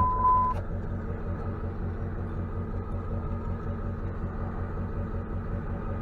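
Tow truck engine idling with a steady, evenly pulsing low rumble. A single short electronic beep sounds right at the start.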